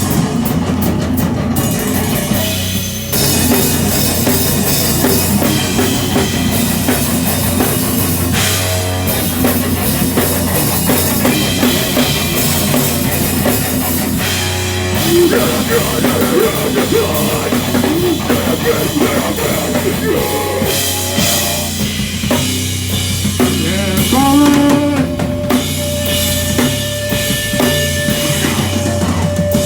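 Heavy rock band playing live and loud, with a pounding drum kit under dense guitars and bass. Near the end a single high note is held steady for several seconds.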